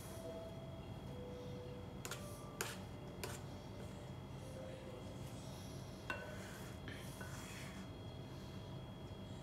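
A few light clinks of kitchenware, four in all and spread apart, two of them leaving a brief ringing note, over a steady low hum.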